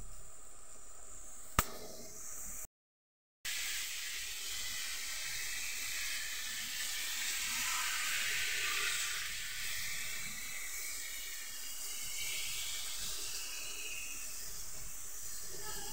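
Broth pouring from a jug onto meat and vegetables in a pan on the stove, a steady hissing, splashing pour that swells a little midway. A single click and a brief cut in the sound come near the start.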